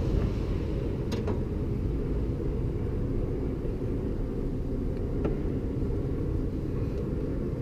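Steady low rumble, with a faint click about a second in and a weaker one around five seconds in, as a Jeep Wrangler TJ hood latch's plastic end clip and metal rod are worked loose by hand.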